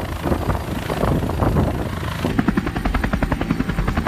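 Helicopter main rotor beating as the aircraft flies low. About two seconds in the sound changes to a rapid, very even rotor beat, as heard from inside the cabin.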